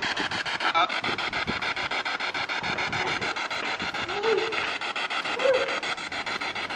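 P-SB7 spirit box sweeping rapidly through radio stations, heard through a small speaker. It makes a fast, even chopping of static with a few brief scraps of broadcast sound.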